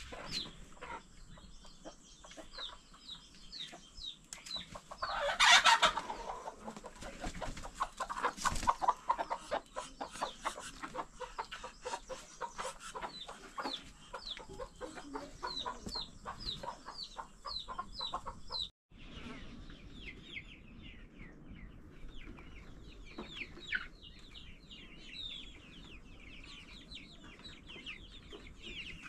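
Domestic chickens clucking, with many short, high, falling chirps repeated throughout and a loud squawk about five seconds in. The sound drops out for a moment about two-thirds through, then the chirping and clucking carry on.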